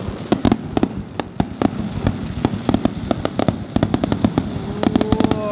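Aerial firework shells bursting in rapid succession, several sharp bangs a second, in a finale barrage.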